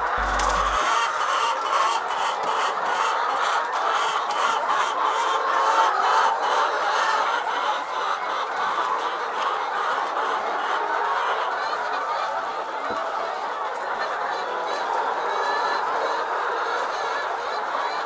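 A large flock of brown layer hens clucking and chattering together in a steady, dense chorus. Many quick clicks run through the first half.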